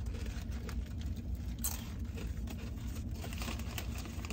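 Eating sounds: crunching and chewing on chips and a sandwich, with the paper wrapper crinkling in small scattered clicks, over a steady low hum inside a car.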